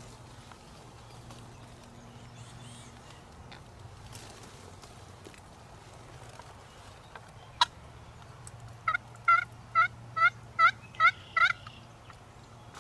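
A wild turkey's call: a run of about eight evenly spaced yelping notes lasting nearly three seconds, after a single sharp click a second or so earlier.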